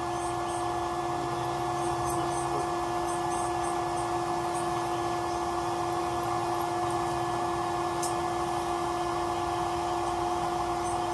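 A steady mechanical hum holding one constant pitch, with faint short high chirps at intervals.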